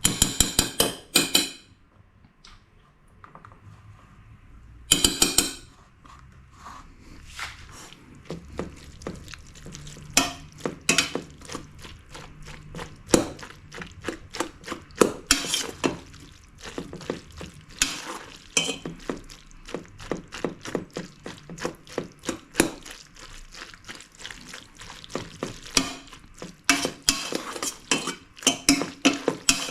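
Metal utensils clinking and scraping against cookware in many quick knocks, with two louder bursts of rapid clatter at the start and about five seconds in.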